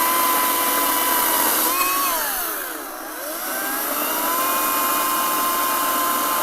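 Echo ECCS-58V battery chainsaw's electric motor running with a steady whine, which drops steeply in pitch about two to three seconds in as the chain loads up in dry hickory, then climbs back and holds steady.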